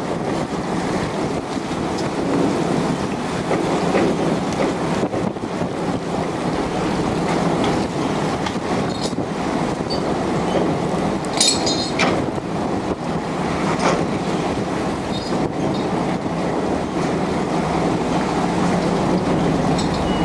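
Steady, loud rumble and rattle of a beam trawler's engine and working machinery, with a brief high metallic squeal about halfway through.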